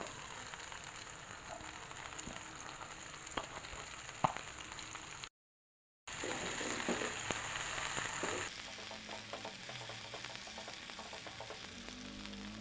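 Shallots, garlic and ground chilies sizzling in hot oil in a nonstick wok as chopped scallions are stirred in with a spatula, with a few sharp clicks of the spatula against the pan. The sound drops out completely for about a second, about five seconds in.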